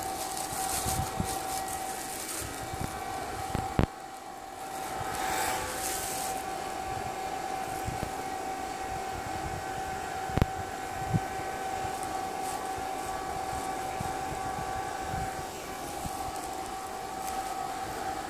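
An electric blower-type motor running with a steady whine over a rushing-air noise, with a brief surge of hiss about five seconds in and a few sharp clicks.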